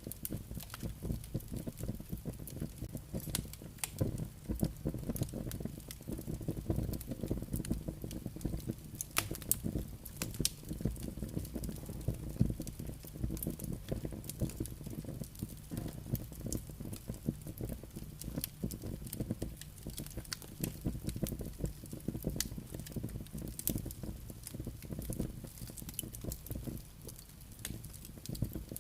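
Campfire crackling, with dense irregular pops and snaps over a steady low rumble of flames and wind.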